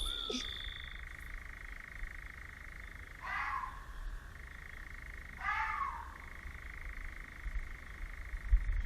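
Frog calling twice, short calls about two seconds apart, over a steady high-pitched chorus.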